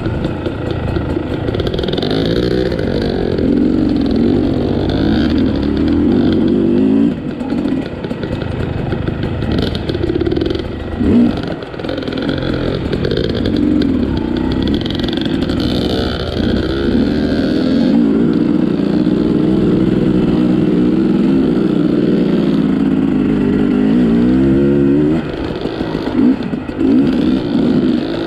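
Dirt bike engine running under constantly changing throttle, revving up and falling back over rough trail, with a few brief drops where the throttle is shut off.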